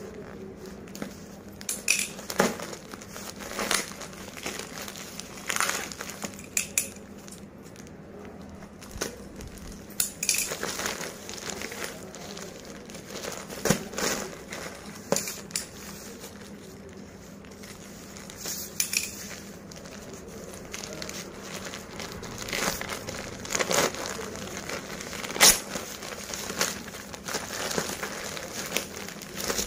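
Plastic parcel packaging crinkling and rustling as it is handled and opened, with irregular sharp crackles; the loudest crackle comes about 25 seconds in.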